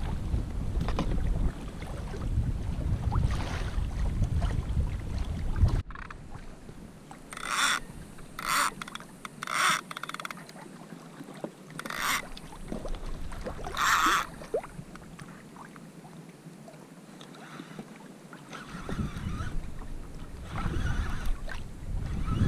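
Water and wind noise around a fishing kayak at sea. A low wind rumble on the microphone cuts off suddenly about six seconds in, followed by five short splashing hisses over the next eight seconds, and the rumble returns near the end.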